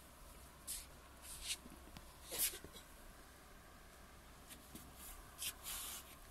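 Faint, intermittent rustling: a handful of short swishes and scrapes of handling noise, the loudest about two and a half seconds in.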